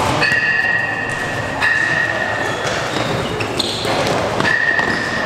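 Basketball sneakers squeaking on a gym floor during play, several drawn-out high squeaks about a second long each, over the echoing din of a hall with crowd chatter.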